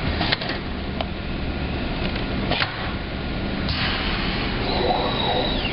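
Automatic screen printing press running, its squeegee and flood-bar carriage working over the screen: steady machine noise with a few sharp clacks, then a louder rush of noise about two-thirds of the way in and a thin high squeal near the end.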